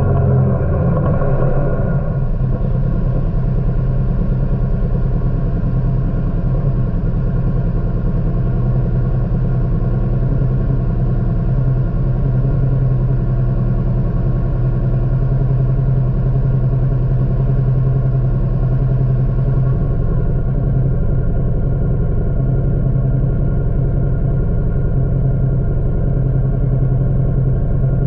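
Kawasaki Teryx4 UTV's V-twin engine, its revs falling off in the first second and then running steadily at an unchanging pitch.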